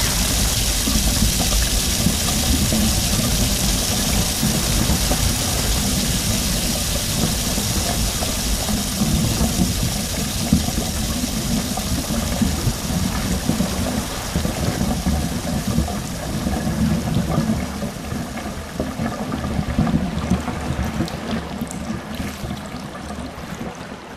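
Water pouring over an edge in a steady rush, fading slowly over the last several seconds.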